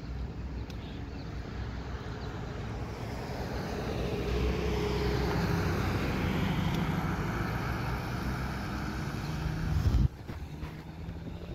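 Road traffic passing: a pickup truck drives by, its engine hum and tyre noise swelling over several seconds and then easing off. About ten seconds in the sound cuts off abruptly and fainter traffic noise carries on.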